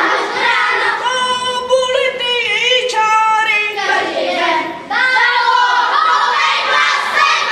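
Children singing a song, with long held notes.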